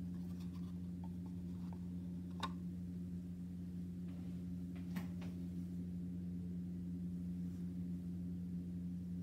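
Steady low electrical hum with a few light taps and clicks. The sharpest comes about two and a half seconds in, as the folded paper book is laid flat on the table, and another about five seconds in.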